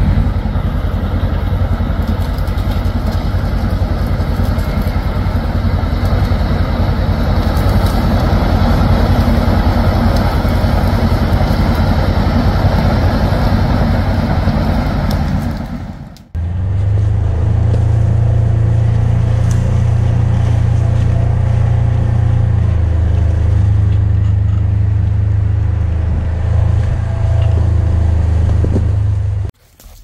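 Large crawler bulldozer (a 200 hp machine with a 12-foot blade) running as it works down a wooded trail, a steady diesel engine note with a busy rattle through it. About halfway in the sound changes abruptly to a steadier low engine drone, the Polaris Ranger side-by-side being driven along the trail, which cuts off shortly before the end.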